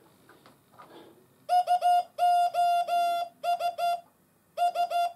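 MFJ-557 Morse code practice oscillator beeping through its built-in speaker as its straight key is keyed out as SOS: three short beeps, three long, three short. After a brief pause, three short beeps begin the next SOS near the end. A few faint knocks of the key come first.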